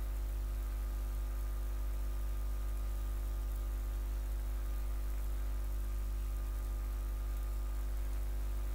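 Steady low hum with a layer of hiss, unchanging throughout: background noise of the recording setup, with no distinct events.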